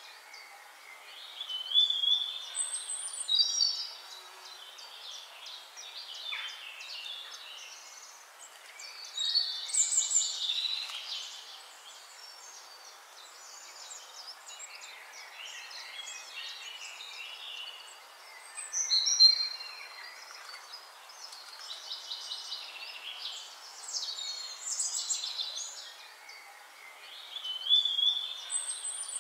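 Birds singing: bursts of high chirps and trills every few seconds, the loudest about nineteen seconds in, over a steady faint hiss.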